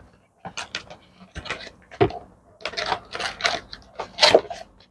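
Cardboard box being pulled open by hand: a dense, irregular run of crackles and rustles as the flaps are worked apart.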